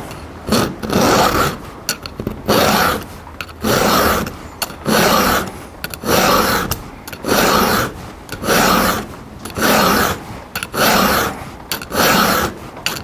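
Hand file rasping across a chainsaw's chisel-chain cutter in about ten steady push strokes, roughly one a second, filing out damage from a badly banged-up chain.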